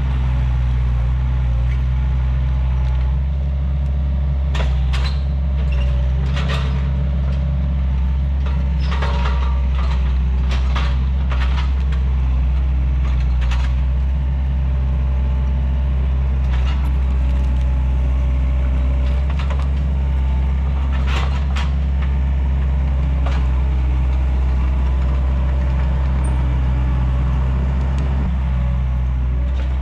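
Takeuchi TL130 compact track loader's diesel engine running steadily under load, with sharp cracks and clanks scattered through it, mostly in the first half and again about two-thirds of the way in.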